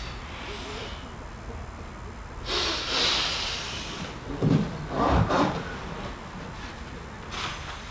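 Several people breathing hard during a physical exercise: a long hissing out-breath a few seconds in, then two short, louder huffs about a second apart.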